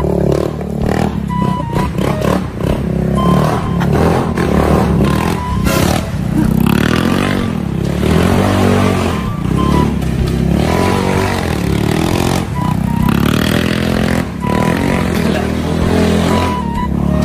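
Motorcycle engine revving up and down again and again, with music underneath.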